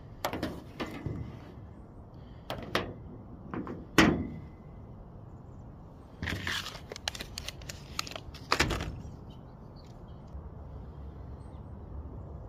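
Hands handling plastic drain tubing and small tools on a car's sheet-metal body panel: a series of knocks and taps, the loudest about four seconds in, with a cluster of clicks and rustling around six to seven seconds and another knock near nine seconds.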